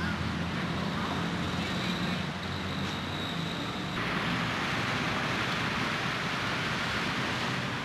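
Street traffic ambience: a steady low hum under a noisy haze, changing abruptly about four seconds in to a brighter, even rush of road traffic.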